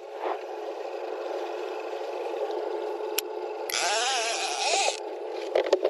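Steady boat motor and water noise while trolling, with a loud burst of rapid clicking from a baitcasting reel's bait clicker for about a second, starting near the four-second mark, as the planer board pulls line off the spool.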